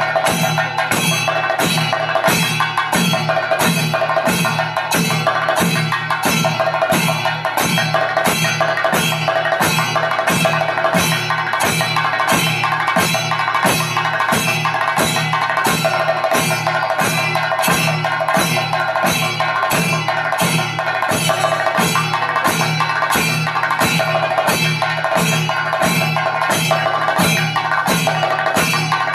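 Irattathayambaka, a double thayambaka: two lead chenda drums played fast with sticks, backed by more chendas and elathalam hand cymbals clashing on a steady, even beat.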